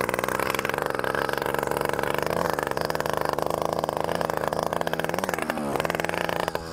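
Small 100cc petrol bicycle-kit engine on a motorised mountain bike running loud and steady as the bike is ridden, a rapid buzzing put-put through an old, cut-down exhaust pipe. The pitch lifts briefly twice.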